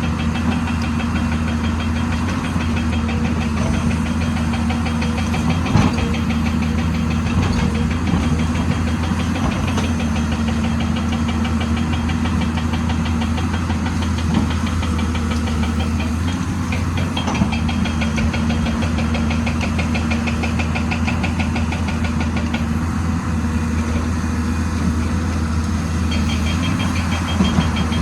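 Heavy excavator's diesel engine running steadily, a low unbroken hum with a fast even rattle over it, broken by a few short sharp knocks.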